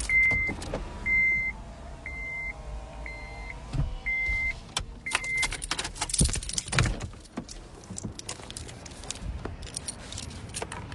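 Gunfire heard from inside a car: a run of sharp pops that come thicker and faster in the second half, a barrage of shots. Over the first half the car's warning chime beeps six times, about once a second.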